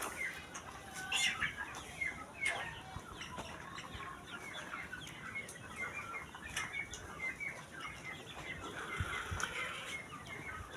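A flock of chickens clucking and peeping, with many short high calls overlapping throughout.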